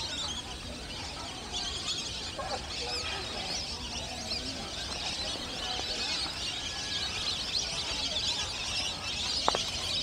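Dense chorus of many small birds chirping and twittering, high-pitched and unbroken, over a low rumble. A single sharp click about nine and a half seconds in.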